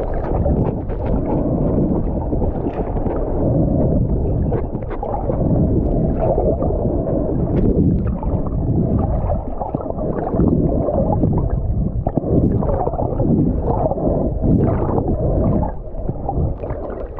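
Muffled underwater noise picked up by an action camera in its waterproof housing: a steady low rumble of moving water with scattered clicks and crackles.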